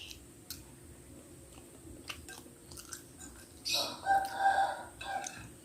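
A few faint clicks, then about three and a half seconds in a loud pitched call lasting about a second and a half, broken into short held segments.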